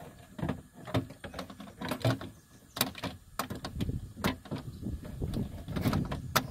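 A metal window regulator and motor assembly clicking, knocking and rattling against the inner door panel as it is wiggled into the door cavity, in a run of irregular clicks and clunks.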